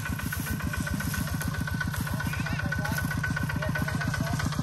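Two-wheel walking tractor's engine running steadily, a rapid even chugging with a steady high whine over it.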